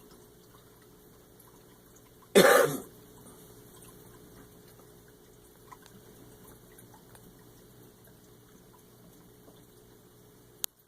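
A single short cough from a person about two seconds in, followed by a few faint ticks and one sharp click near the end.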